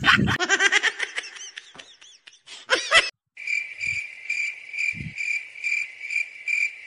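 Cricket chirping in a steady, even rhythm of about two to three chirps a second, starting after a short break about three seconds in. Before it, fading, wavering squeaky sounds die away.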